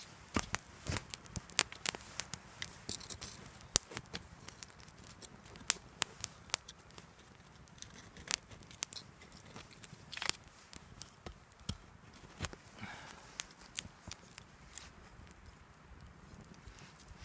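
Small campfire of split kindling crackling, with irregular sharp pops. Split sticks clack as they are laid onto the fire.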